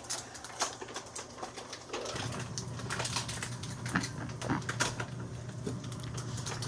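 Kitchen cooking noises: scattered sharp clicks and pops, with a low steady hum that comes on about two seconds in.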